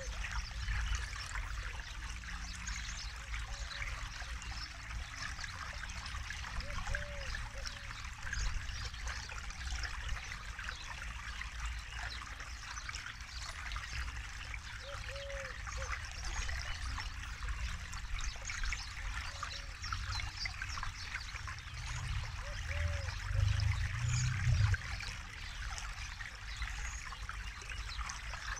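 Forest river running over rocks, a steady babbling and trickle of flowing water, with a low rumble swelling briefly near the end.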